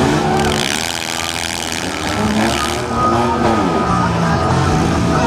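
Several demolition-derby cars with 4- and 6-cylinder engines revving up and down, pitch rising and falling as the cars manoeuvre.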